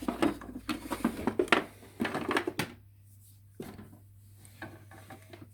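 Plastic clicks and knocks from a toy playset being handled, dense for the first couple of seconds and then sparse, over a faint steady low hum.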